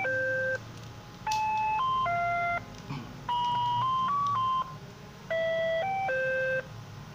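Simple electronic jingle of steady beep tones playing a melody in short phrases of three or four notes, with a brief pause between phrases.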